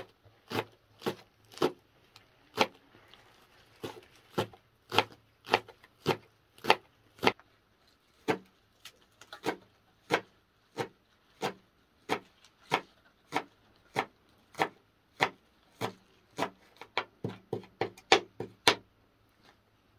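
Kitchen knife chopping fresh green onions and greens on a cutting board, one sharp knock per stroke at about two a second, quickening to about three a second near the end.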